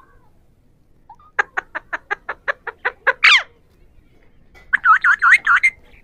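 Alexandrine parakeets (Pahari parrots) calling: a quick run of about ten short clipped calls, then a rising squawk, then near the end a second run of five or six looping calls that bend up and down in pitch.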